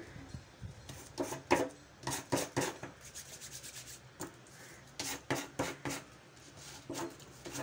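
Kraft paper being rubbed down with a ruler edge and hands to smooth a freshly glued fold: several quick scraping strokes in three or four groups.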